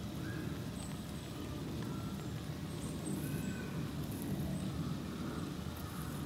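Steady low outdoor background rumble, with a few faint short high calls scattered through it.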